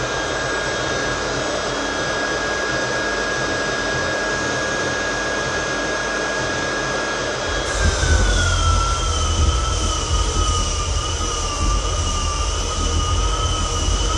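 Floor edger sanding a hardwood floor's edge, its motor running with a steady high whine. About eight seconds in the whine drops in pitch and a heavier low rumble sets in.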